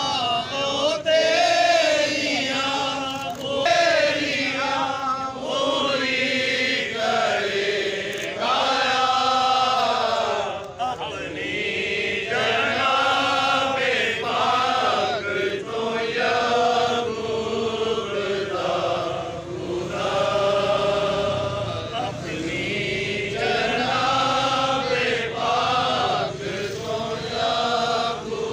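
A crowd of protesters chanting together in unison, in long, drawn-out sung phrases.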